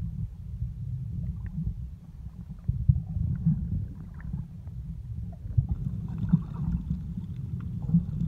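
Underwater ambience heard through a waterproof camera housing: a steady muffled low rumble of water moving against the housing, with a few dull thumps and faint ticking.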